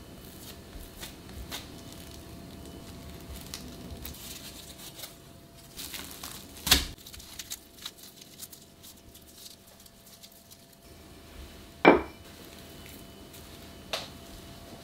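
Plastic cling wrap rustling and crinkling as a ball of dough is wrapped and pressed flat with a rolling pin, with three sharp knocks of kitchen utensils on the counter or bowl; the loudest knock, about twelve seconds in, rings briefly.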